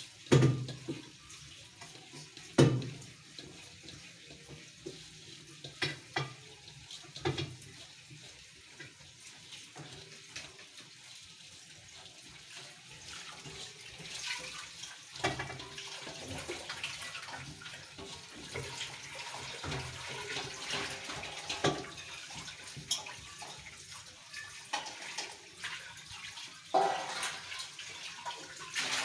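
Water splashing and bubbling in a cooking pot of basmati rice, busier from about halfway, with several sharp knocks of a utensil against the pot.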